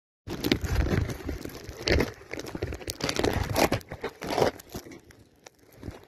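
Irregular rustling and buffeting bursts from wind and handling on a handheld camera's microphone, starting abruptly just after the start and dying down in the last two seconds.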